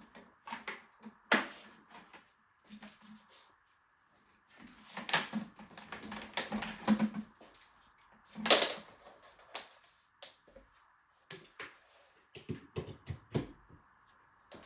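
Intermittent clicks, taps and rustling as things are handled by hand in a small room, with a louder rustling burst about two thirds of the way through.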